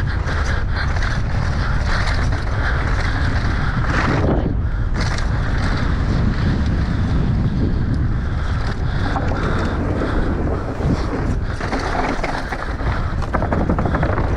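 Wind buffeting the microphone over mountain bike tyres on dry dirt and the rattle of the bike on a fast downhill run, with a louder clatter about four seconds in.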